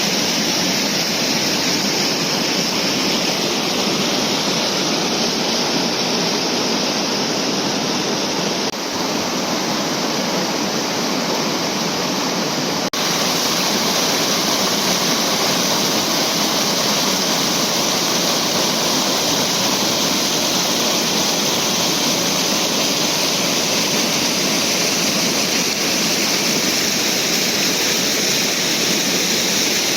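Waterfall on a moorland river: a loud, steady rush of falling water, briefly broken twice in the first half.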